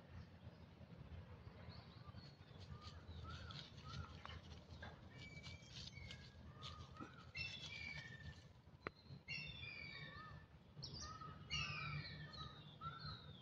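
Birds chirping and calling in short whistles, many falling in pitch and busiest in the second half, over a faint low rumble, with a few dry clicks and rustles.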